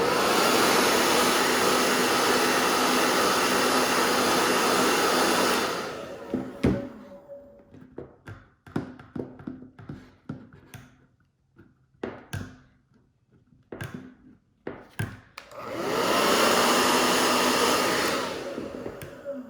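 Handheld blow dryer running steadily for about six seconds, then switched off; a scatter of light clicks and taps follows, and the dryer runs again for about three seconds near the end before dying away. It is heating a Talon adhesive grip on a pistol frame so the grip bonds tight.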